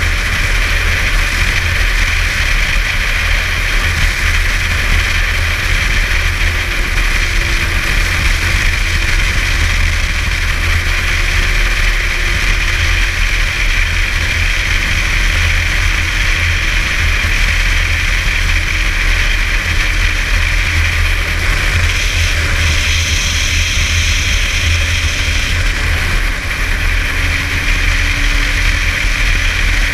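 Snowmobile running steadily at trail speed, its engine and track making a loud, even drone with a heavy low rumble. A faint tone in it drifts slowly lower, and a higher hiss joins for a few seconds about two-thirds of the way through.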